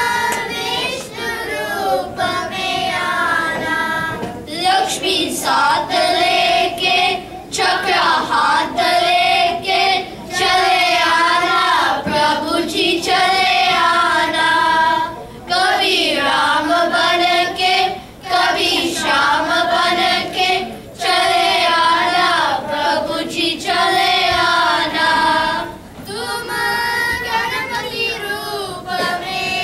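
A group of children singing a devotional prayer together in chorus into stage microphones, in sung phrases of a few seconds broken by short pauses for breath.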